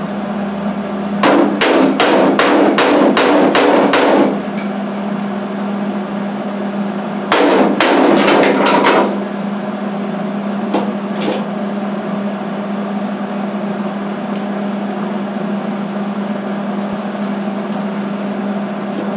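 Ball-peen hammer striking the sheet-metal edge of a welded-in truck bedside patch panel, working it into line. The blows come in two quick runs of about eight to ten, starting about a second in and again about seven seconds in, followed by two light taps, over a steady low hum.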